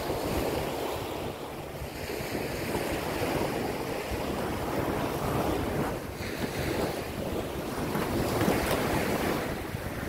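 Small waves washing up on a sandy beach, swelling and easing, with wind buffeting the microphone.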